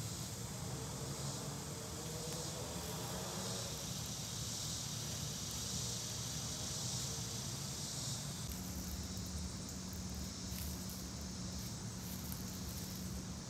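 Outdoor ambience of insects droning steadily on a high note, over a low rumble. About eight and a half seconds in the scene changes, and a steady low hum joins the insect drone.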